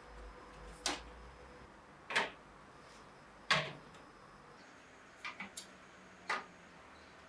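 Several sharp clicks and knocks of kitchen items being handled and set down, spaced a second or so apart, with a quick run of three light taps just past the middle.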